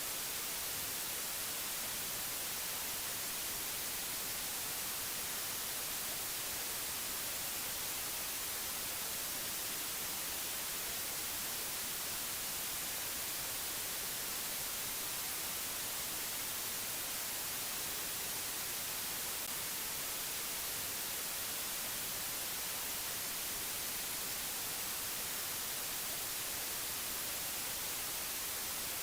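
Steady white-noise hiss, even and unchanging, brightest in the high end.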